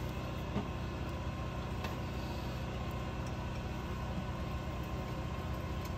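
A steady low mechanical hum with a faint click about half a second in.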